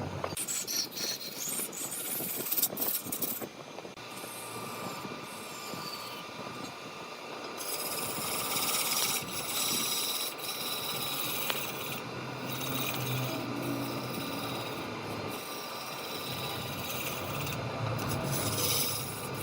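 Wood lathe running while a turning tool scrapes and cuts the spinning wood: a rough rasping hiss over a faint steady hum, breaking off briefly a few times.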